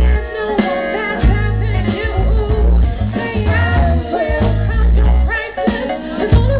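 Live band music: a woman sings lead over electric guitar, bass, keyboard and drums, with a heavy bass line.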